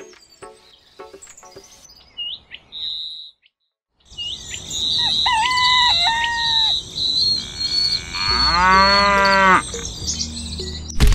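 Farmyard sound effect: faint bird chirps at first, then from about four seconds in louder birds chirping, and a cow mooing once, a single long call, about eight seconds in.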